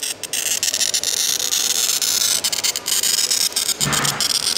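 A small tool scraping and rubbing across a sheet of coloured flat glass: a harsh, steady hiss broken by many short gaps as the strokes change, with a dull knock about four seconds in.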